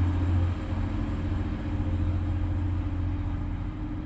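TransPennine Express Class 185 diesel multiple unit pulling away along the platform, its diesel engines giving a steady low drone that slowly fades as it moves off.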